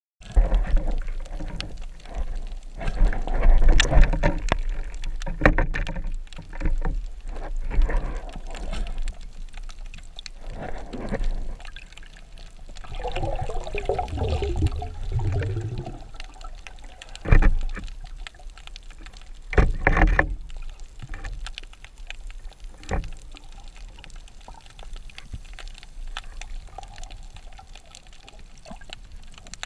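Underwater water noise picked up through a speargun-mounted action camera's housing: irregular swishing and gurgling as the spearfisher moves through the water, with a few sharp knocks about two-thirds of the way in.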